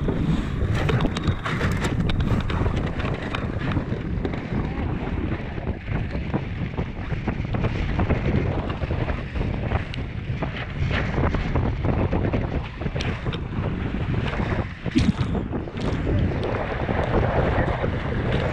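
Wind buffeting the microphone over water rushing and splashing against the hull of a Weta trimaran under sail, a steady rush broken by frequent short splashes and knocks.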